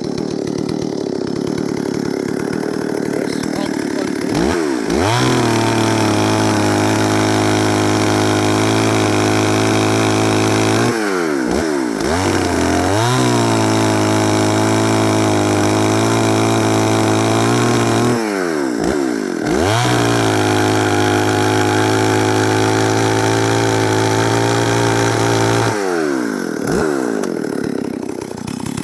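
Stihl 038 Magnum two-stroke chainsaw idling, then run up to high speed three times. Each time it holds a steady high pitch for about six seconds and drops back towards idle in between.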